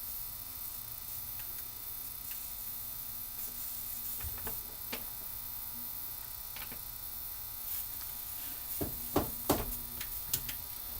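Transformer soldering gun humming steadily with the trigger held while it heats a twisted wire joint, with a few light clicks or taps near the end.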